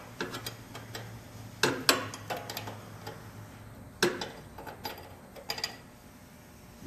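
Wrench and metal hose fitting clicking and clanking in irregular bursts as an oil hose fitting on an air-cooled VW engine is tightened.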